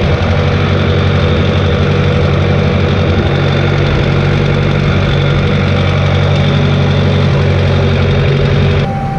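Massey Ferguson tractor's diesel engine running steadily while pulling a plough, with a sudden change in the engine sound just before the end.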